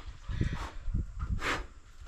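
Pigs grunting, with a short breathy snort about one and a half seconds in, over irregular low thuds of movement.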